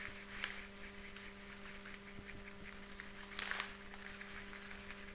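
Ground almonds being shaken out of a bag into a mixing bowl: crinkly rustling of the bag and a soft patter of the falling meal, with a louder flurry of rustling about three and a half seconds in.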